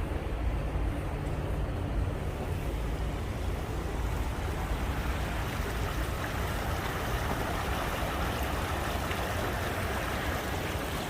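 Steady outdoor rushing noise over a low rumble; the higher rush grows louder about halfway through.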